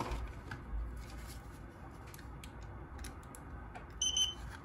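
Small handling clicks and rustling, then about four seconds in a digital battery capacity checker gives a short high electronic beep as an RC car battery's plug is connected to it, switching the checker on to read the battery.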